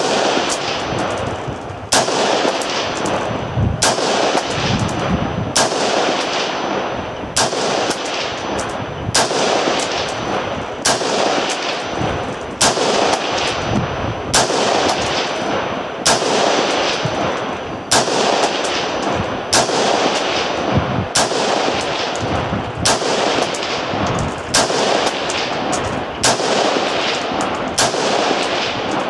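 Reproduction Armalite AR-15 prototype rifle firing semi-automatic with Tula ammunition, about seventeen shots at a steady pace of roughly one every two seconds, each with a sharp crack and a long echo. The rifle is cycling, chambering each next round from the reproduction waffle magazine.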